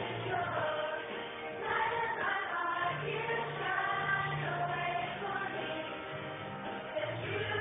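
Children's choir singing together, accompanied by an electric organ holding steady low notes under the voices.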